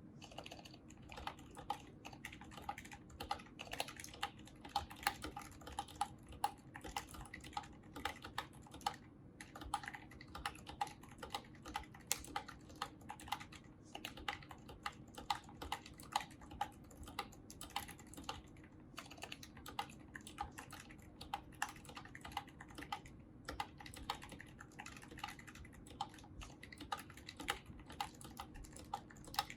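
Typing on a 60% mechanical keyboard in a resin case fitted with lubed Zilents V2 silent tactile switches: a quick, uneven run of soft keystrokes with a few short pauses.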